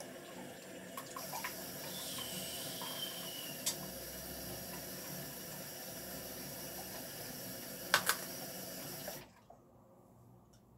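Water running from a tap, a steady rush that stops suddenly about nine seconds in. A couple of short knocks, the loudest about eight seconds in.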